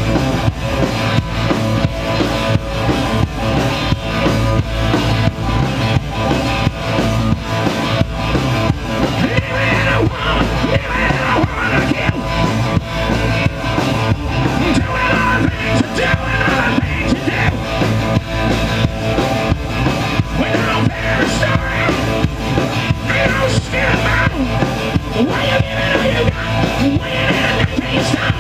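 Live rock band playing through a PA: electric guitars and a drum kit keeping a steady beat, with a shouted vocal over the top.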